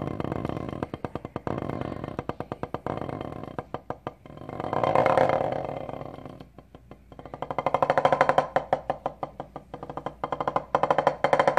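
Wooden drumsticks playing rapid strokes on a drum practice pad. The strokes swell to a loud peak about five seconds in, fall away, then build up again near the end.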